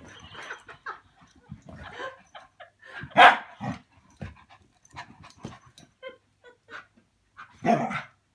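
Small dogs play-fighting, with short, irregular bursts of dog vocalising and scuffling. The loudest outburst comes about three seconds in, and another near the end.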